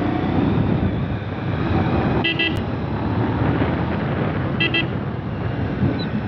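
Bajaj Pulsar 150's single-cylinder engine running while under way, with steady wind and road noise. A horn gives a quick double beep about two seconds in and again near five seconds.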